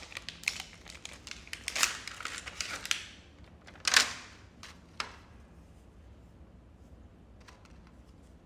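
Sticker packaging being opened by hand: dense crinkling and crackling for about three seconds, a single loud rip about four seconds in, and a sharp click at five seconds, with faint rustles after.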